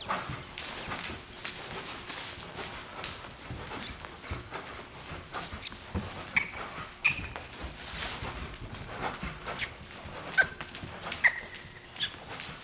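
Horse trotting in long lines on arena dirt: irregular hoofbeats, with short high-pitched squeaks scattered through.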